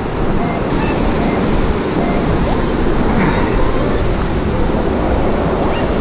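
Steady rush of fast-flowing stream water.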